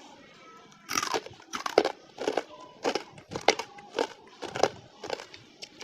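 Crunching of crispy spicy basreng (fried meatball chips) being chewed close to the microphone: a run of sharp crunches, about two a second, starting about a second in.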